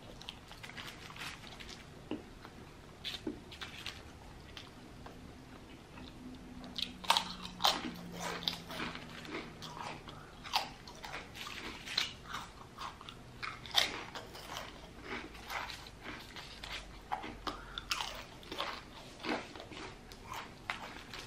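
Close-miked eating: soft, sparse chewing at first, then from about seven seconds in a steady run of sharp crunches from potato chips being chewed.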